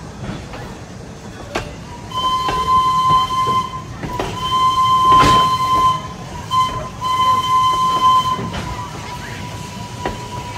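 Steam locomotive whistle blowing a series of blasts of one steady high pitch: a short one, a long one, a short one and another long one, then trailing off faintly. People talk nearby and there is a sharp knock midway.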